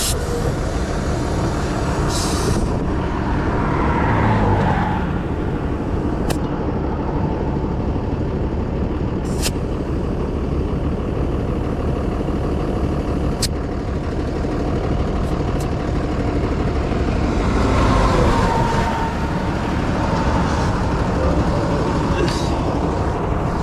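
Steady roadside traffic noise with a truck engine running close by. Passing vehicles swell up about four seconds in and again around eighteen seconds, and there are a few sharp clicks.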